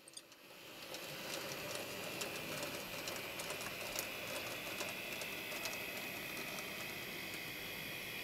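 N gauge model Class 37 locomotive running along the track with its wagons: a steady high motor whine with faint, irregular clicking of small wheels on the rails, fading in about a second in.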